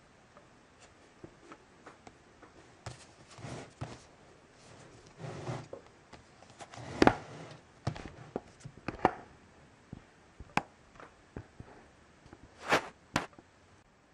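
Handling noise from a cardboard iPad mini box on a wooden table: scattered taps, knocks and short scrapes as fingers grip, slide over and set down the box, with the sharpest knocks about seven seconds in and near the end.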